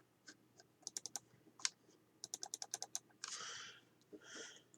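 Faint, light clicks and ticks from handling the bullet puller and cartridge on the reloading press: a few single clicks, then a quick run of about eight in under a second, followed by two short soft rustles.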